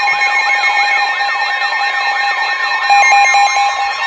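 Emergency alert receivers sounding their warning tones at once: a warbling siren-like alarm sweeping up and down about three times a second over several steady high alert tones, the attention signals of weather alert radios going off for a severe weather warning. About three seconds in, the lower steady tone briefly turns choppy.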